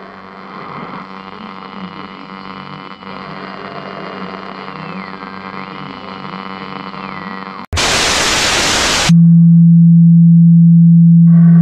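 Eerie droning ambient tone with a faint high tone that slides down and back up. About eight seconds in it cuts off abruptly into a loud burst of static hiss lasting over a second. Then comes a very loud, steady low hum-like tone.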